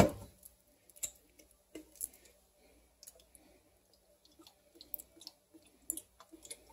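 Sauce bottles and their caps being handled over a countertop: a sharp knock at the start, then scattered faint clicks and taps as a bottle is tipped over a small ceramic bowl to pour.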